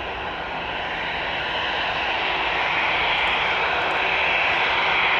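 Twin jet engines of an Airbus A320-family airliner at low taxi power, a steady whining hiss that grows gradually louder as the jet turns toward the listener.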